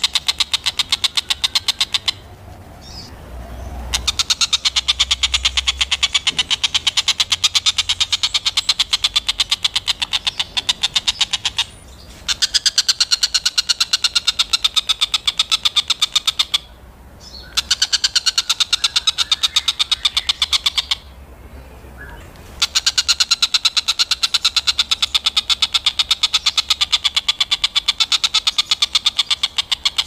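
Oriental dollarbird (tengkek buto) giving its chattering 'ngekek' call: a fast, steady run of rattling notes in long bouts, broken by four short pauses.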